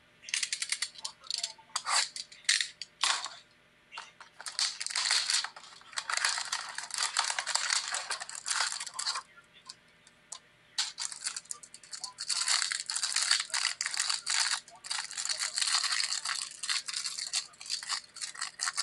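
Crinkly plastic wrapping being torn and scrunched in bursts as a Chronicles football trading-card blaster box and its packs are ripped open, with two short pauses.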